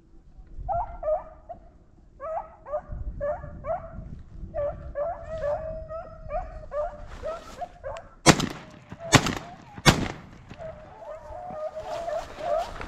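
Hunting dogs baying on a rabbit's trail, several cries in a row. Then three shotgun shots, about a second apart, with the dogs baying again afterwards.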